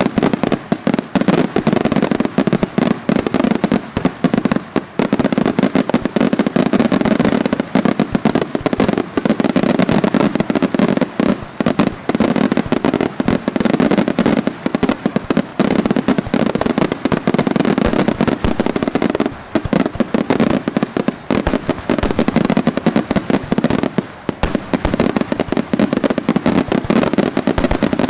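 Daytime fireworks display firing a dense, continuous barrage of firecracker bangs, too rapid to count, with only brief lulls.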